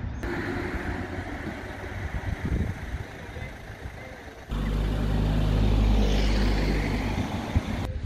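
Road traffic: a car-like noise for the first half, then, after a sudden change about halfway through, a louder steady low engine hum.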